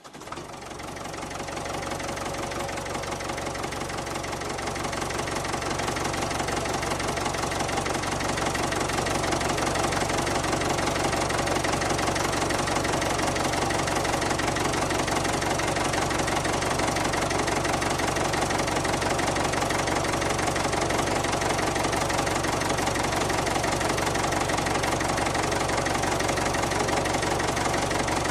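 Tractor engine running steadily at idle, swelling up over the first several seconds and then holding level.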